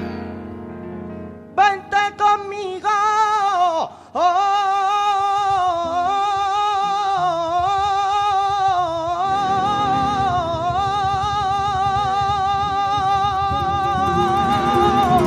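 Male flamenco singer singing a long, ornamented line with a wavering vibrato on held notes, accompanied by Spanish guitar. The voice comes in about a second and a half in over a ringing chord, breaks briefly around four seconds, then holds one long phrase while the guitar strums more busily underneath from about halfway.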